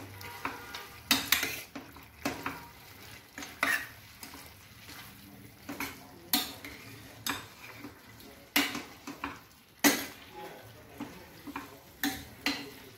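Spoon stirring chicken pieces in masala in a stainless steel pressure cooker pan, scraping and knocking against the metal sides in irregular sharp clinks about once a second.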